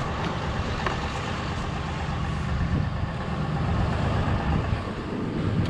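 A vehicle engine idling steadily at close range.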